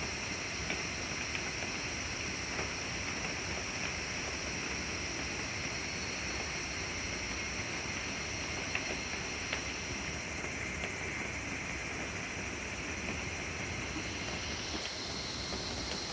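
Steady rain falling on woodland: an even hiss with a few louder single drops.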